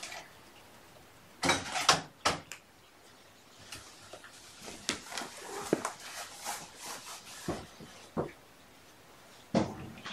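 Household handling noises: a few sharp knocks and clatters, then scattered light clicks and rustles, and another knock near the end.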